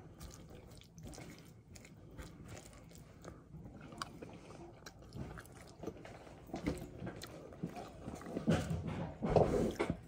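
Close-up sounds of a person chewing a salad of lettuce, with short crunches and small clicks throughout. The sounds grow louder near the end, as the person lifts a drink can and sips.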